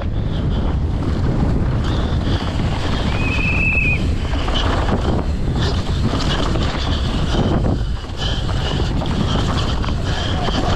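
Wind rushing over the microphone of a downhill mountain bike at speed, with rumbling tyres and the rattle and knocks of the bike over rough trail. A brief high-pitched squeal comes about three seconds in.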